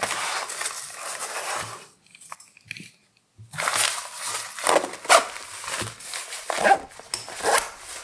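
Rustling and rubbing of a nylon pouch's fabric as it is handled: a stretch of dense rustling, a brief pause, then several short scuffs.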